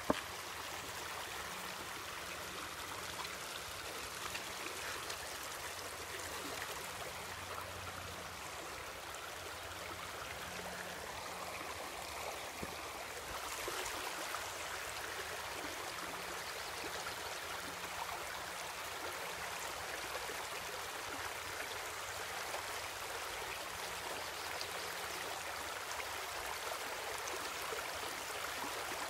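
Shallow rocky creek running over stones in small riffles, a steady rushing of water that grows a little louder about halfway through.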